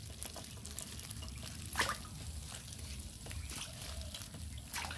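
A bowlful of live, drained climbing perch fingerlings wriggling wet against a steel bowl and being stirred by hand, a faint patter of dripping water, with two sharper splashes, about two seconds in and near the end.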